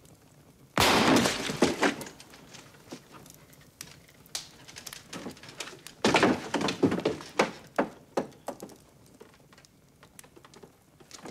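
A single pistol shot in a small room, sudden and loud, ringing on for about a second, followed by scattered small knocks. About five seconds later comes a second loud burst of clattering, cracking impacts.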